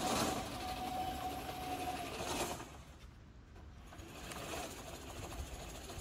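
Electric 48 V servo track-drive motors of a remote-control crawler flail mower whining as the machine drives on its tracks, with the petrol engine not yet started. The steady whine lasts about two seconds, then drops away and the sound goes quieter.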